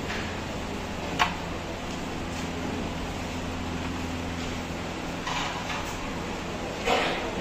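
Carrom strikers being played on the board: one sharp wooden click about a second in, then near the end a louder clatter lasting about half a second. A steady low hum runs underneath.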